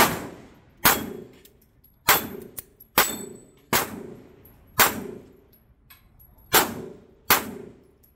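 Pistol fired eight times at an uneven pace of about one shot a second, most shots followed by the ring of steel plates being hit on a steel plate-rack/dueling-tree target.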